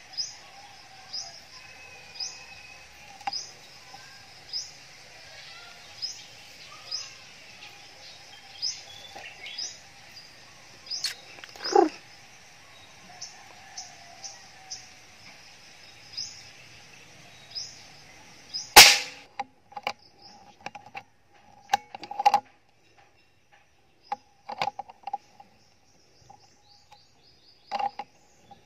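Short high bird chirps repeat about once a second, with one louder falling call near the middle. About two-thirds of the way through comes a single sharp crack of an air rifle shot, followed by scattered clicks and knocks.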